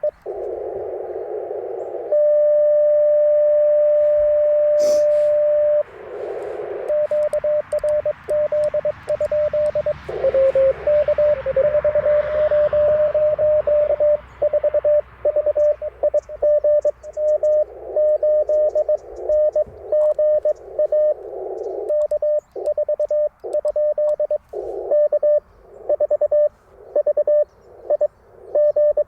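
Morse code (CW) tones near 600 Hz from an Icom IC-705 transceiver. A steady tone is held for about four seconds, then rapid keyed dits and dahs follow, broken by short stretches of receiver hiss.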